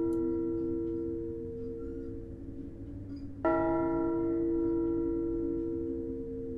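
A single church bell tolling slowly: the ring of the previous stroke fades, then one fresh stroke comes about three and a half seconds in and rings on, dying away.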